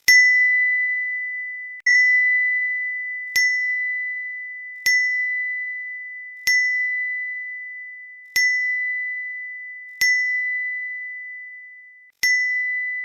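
Livpure RO water purifier's alarm beeping repeatedly: eight high, single-pitch beeps, each starting sharply and fading slowly, one every one and a half to two seconds. It is a fault alert that the uploader links to the UV bulb.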